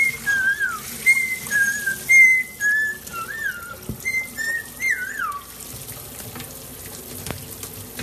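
Tap water running into a stainless steel sink while a parrot bathes under it, with a string of clear whistled notes over the first five seconds or so, mostly in pairs of a level note followed by a falling one. After the whistling stops only the running water remains.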